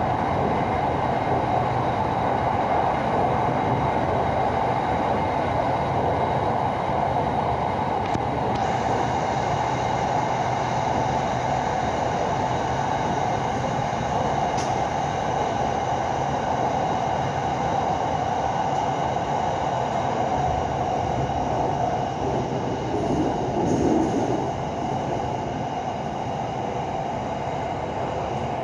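Inside a Hitachi-built SRT Red Line electric commuter train running at speed: a steady rumble of wheels on rail and running noise, with a faint steady whine above it. It gets a little quieter near the end.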